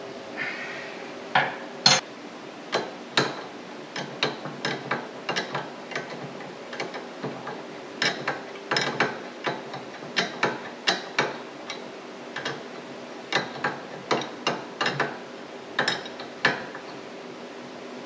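Irregular metallic clinks and knocks of hand tools and metal parts being handled and worked, several dozen sharp strikes unevenly spaced, over a steady low hum.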